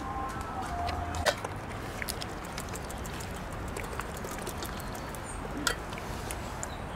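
Cat eating chunks of wet cat food: faint, scattered chewing clicks over a steady outdoor background hiss, with a sharper click about a second in.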